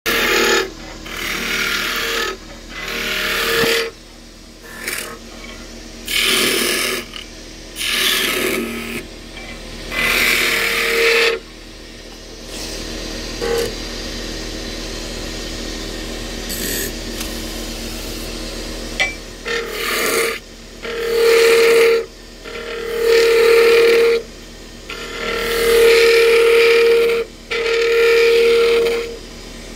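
Wood lathe spinning a wooden spindle while a hand-held turning chisel cuts it in repeated passes, each pass a loud scraping of the blade peeling shavings off the wood over the lathe's steady running. In the middle the cutting stops for several seconds and only the lathe runs; then the passes resume, each now carrying a strong steady tone.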